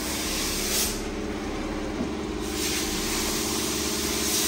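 Chrysler 300S's 5.7-litre Hemi V8 idling steadily through freshly fitted Carven R-Series performance mufflers, with the mid-muffler and resonator deleted. Short bursts of hissing come about a second in and again near the end.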